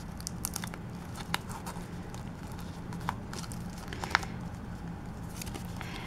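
Sheets of card stock being handled and folded by hand: light rustling with a few scattered soft crinkles and clicks, over a steady low hum.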